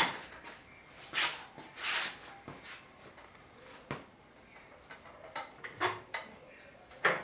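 Scattered knocks, clunks and short scrapes as a transmission is shifted about on a jack and its wood and metal supports. The loudest knock comes at the very start, with others about a second apart and then near the end.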